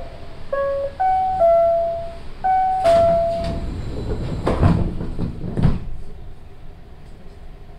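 Osaka Monorail car's door chime, five short ringing notes, followed about three seconds in by a run of heavy knocks and rumbles from the sliding doors, then the quieter steady hum of the car.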